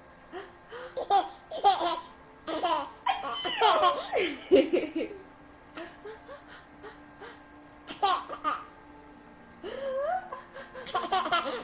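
A baby laughing in several separate bursts with short quiet gaps between them, the longest bout lasting about two seconds a few seconds in.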